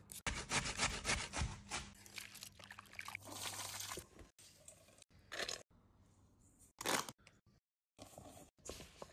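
Food preparation with raw potato. It opens with a quick run of scraping strokes as a Y-peeler strips the skin, then a rushing, wringing sound as grated potato is squeezed in a tea towel. A few short rustles follow as hands mix the potato shreds in a stainless steel bowl.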